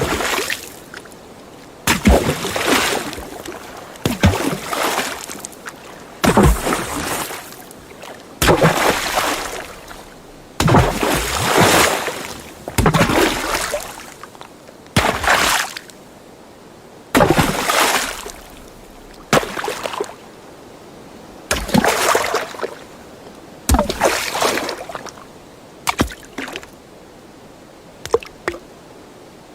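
A string of separate water splashes, about one every two seconds: each is a sudden impact into water followed by a sloshing wash that dies away within a second or so. The last few are small and short.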